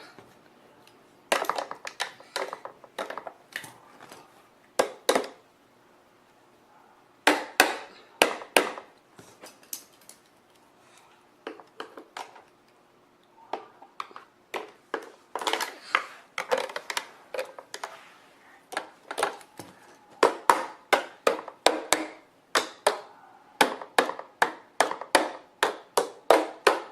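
Hard plastic toy parts being handled, knocking and clicking together in quick runs of taps with short pauses between.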